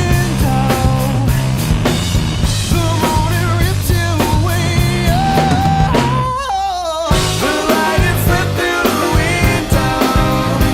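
Rock song with a drum kit and singing. About six seconds in the drums drop out for about a second while a wavering held note carries on alone, then the band comes back in.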